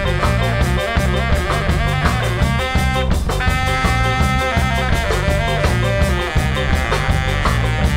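Live band playing a reggae groove with a Greek tsifteteli flavour: bass and drum kit keep a steady beat under guitar, and a saxophone plays held melody notes over the top.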